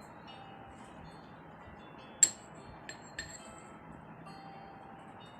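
A spoon clinking against a drinking glass three times, the first knock about two seconds in the loudest, each with a brief high ring.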